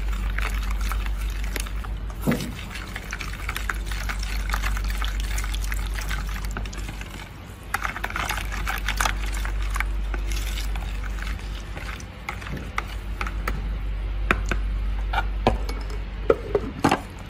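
Liquid being poured and mixed in a bowl, with a utensil clicking against it and a few sharper clicks near the end, over a steady low hum.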